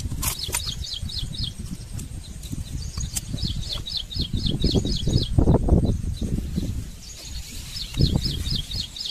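A bird calling in three runs of quick, high, repeated chirps, about five a second, over loud low rumbling and rustling from close handling of the phone in the grass.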